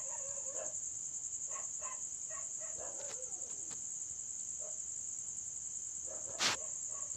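Steady high-pitched insect chirring, with a few faint distant sounds and one short sharp sound about six and a half seconds in.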